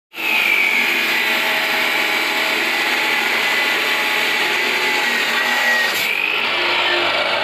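Abrasive cut-off (chop) saw grinding through steel reinforcing bars, a steady loud whine with a shower of sparks. The whine slowly sinks in pitch as the disc bears down on the steel, then climbs again about six seconds in as the cut eases.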